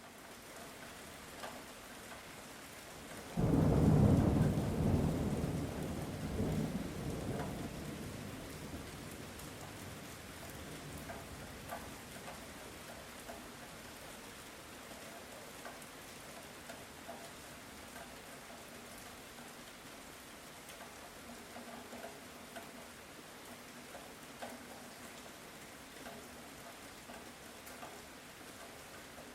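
Light rain falling steadily, with scattered drops. About three seconds in, a sudden rumble of thunder swells to the loudest point and then dies away over several seconds.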